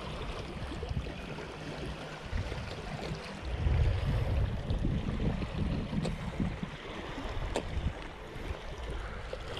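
Wind buffeting the microphone over small waves lapping on a rocky shoreline, with two sharp clicks in the second half.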